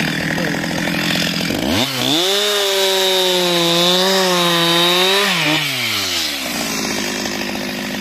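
Stihl MS 361 single-cylinder two-stroke chainsaw running at a low pitch, then opened up to full throttle about two seconds in and held for about three seconds as it cuts into a log, with a slightly wavering pitch under load, before dropping back to a low pitch.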